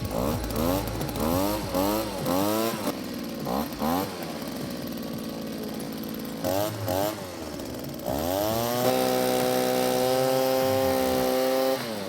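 GeoTech BBV260A blower-vacuum's small engine being revved in quick repeated blips, settling back to a lower idle between them, then held at a steady higher speed from about eight seconds in, with a brief drop near the end.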